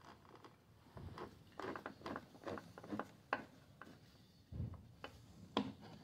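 Hands fitting plastic housing parts onto a Stihl backpack blower: a run of light clicks, taps and rubbing, then a dull knock and a sharp click near the end.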